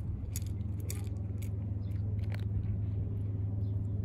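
A calico cat crunching dry kibble from a metal dish, with about half a dozen sharp crunches in the first two and a half seconds, then stopping. A steady low hum runs underneath and is the loudest sound.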